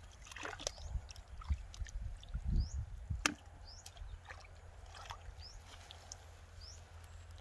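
Hands and bare feet sloshing and splashing in shallow muddy water, with scattered small splashes and slaps, busiest in the first few seconds.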